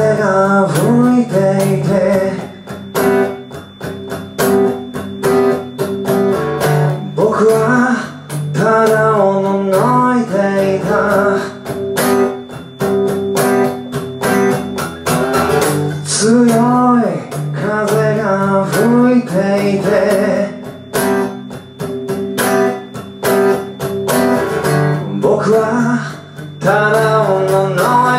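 A man singing a Japanese song in phrases over a strummed acoustic guitar, a live acoustic performance with no pause in the music.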